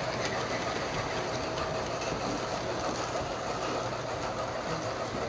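O gauge model freight train rolling past on the layout, a steady whirring clatter of its cars' wheels on the track.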